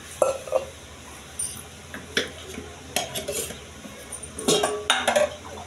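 Steel dishes clinking and knocking against each other a few times, with the loudest cluster of clinks about four and a half seconds in.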